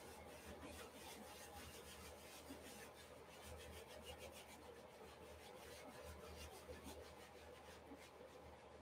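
Faint, quick, repeated strokes of paint being rubbed and scrubbed onto a stretched canvas, as acrylic is worked into the surface by hand.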